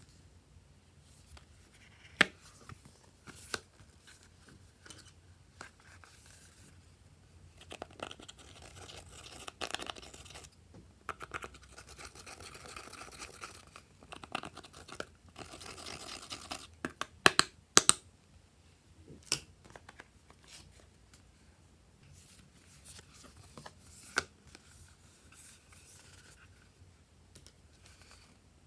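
A thin metal tool scraping pressed eyeshadow out of the pans of a palette, in stretches of dry scratching, with several sharp clicks and taps of the tool and palette.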